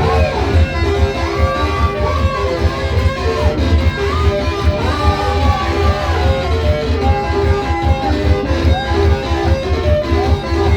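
Praise music led by guitar: a repeating pattern of short plucked notes over a strong, steady bass, with a higher melody line that slides between notes.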